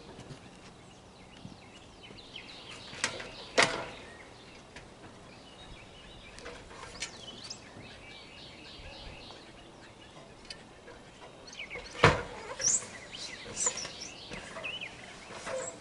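Small birds chirping repeatedly, with a few sharp knocks: two close together about three seconds in and two more about twelve seconds in.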